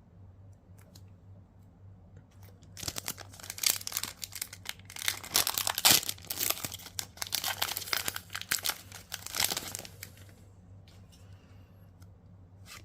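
A trading-card booster pack wrapper being torn open and crinkled, from about three seconds in to about ten seconds in, then a few light clicks.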